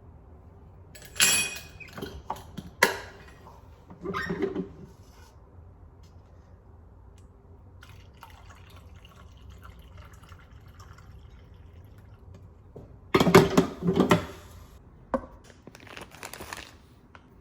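Dry dog food poured into bowls in three short bursts of clattering, with a single click near the end.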